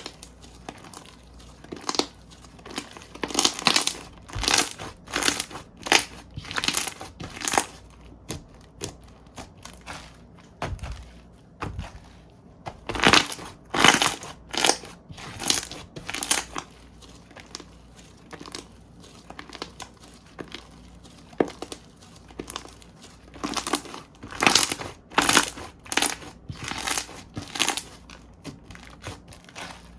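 Slime being pressed and squeezed by hand, making short noisy squishes about one or two a second. They come in three runs with quieter pauses between.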